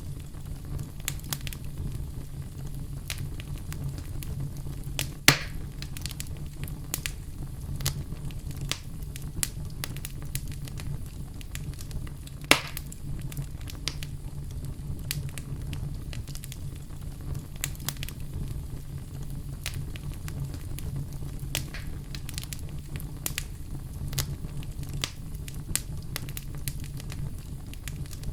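Wood fire crackling in a fireplace: a steady low rumble of the flames under scattered sharp pops and snaps, with two louder pops about five seconds in and about twelve seconds in.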